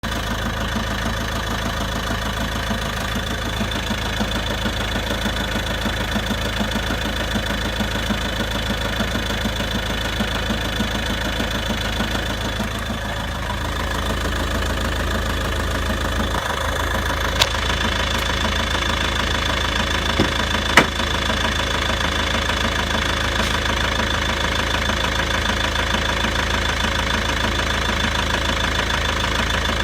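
Volvo V70 2.0 diesel engine idling steadily with a knocking, tapping noise that the owner suspects comes from the clutch or the dual mass flywheel. A few sharp clicks stand out about halfway through.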